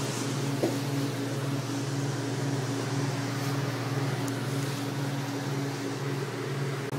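Steady low mechanical hum with an evenly pulsing throb, over a faint hiss.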